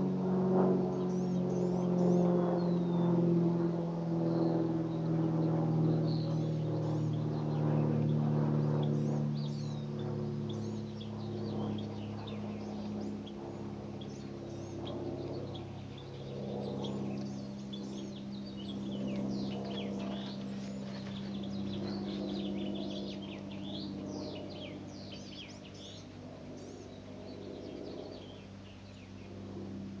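Deep metal chime tones ringing and slowly fading, sounded again about halfway through, while songbirds chirp throughout, more busily in the second half.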